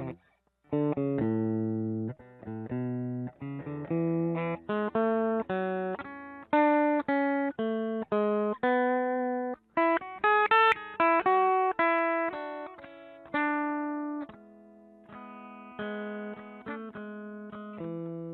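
Electric guitar played through an Egnater Tweaker 15 tube amp head with 6V6 power tubes: a string of picked chords and single notes, some left ringing, to test the amp now that its red-plating fault is repaired.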